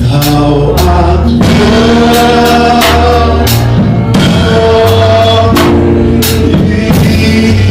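Gospel worship music: singing over a live band with bass and drums, loud and steady.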